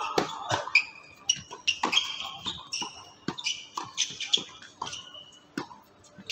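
Tennis rally on a hard court: a string of sharp racket-on-ball strikes and ball bounces at uneven intervals, with short high squeaks in between.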